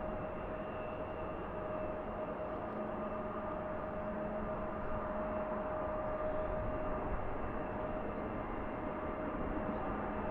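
Jet airliner engines running steadily, a constant whine over a rushing noise.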